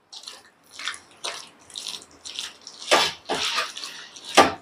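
A bare hand squishing and squelching chicken leg pieces through a thick, wet marinade of egg, flour and spice paste in a steel bowl. It comes as irregular wet smacks, the loudest about three seconds in and just before the end.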